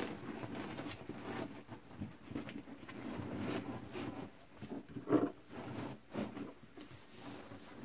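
Vinyl seat cover being worked by hand onto a race seat: irregular rustling and rubbing of the vinyl against the seat, with a louder scuff about five seconds in.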